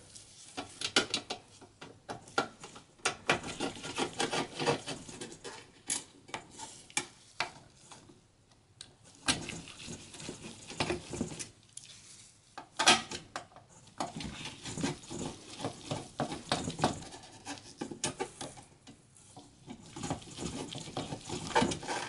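Phillips screwdriver backing screws out of a steel hard drive cage: irregular small metallic clicks, ticks and scrapes of the tip and screws against the sheet metal, in runs with short pauses.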